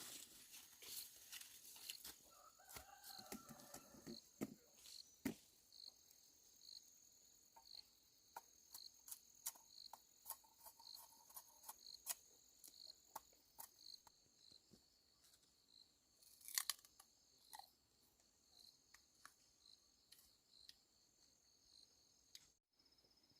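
Faint scattered snaps and tearing of leafy vegetable stems being picked by hand, over an insect chirping steadily about one and a half times a second.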